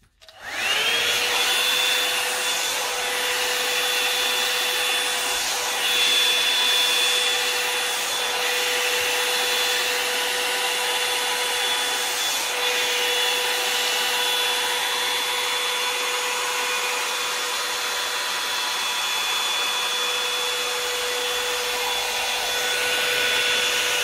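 Revlon One-Step hot-air brush hair dryer switched on: its motor whines up to speed within about a second, then runs steadily with a high whine over the rush of blown air.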